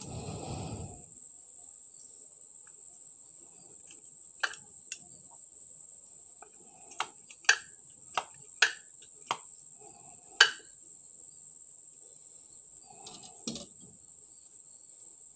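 About eight sharp clicks and knocks between about four and ten and a half seconds in, and a softer knock near the end, from small wooden boards joined by a metal hinge being handled and worked with a screwdriver. Over them runs a cricket's steady high-pitched call.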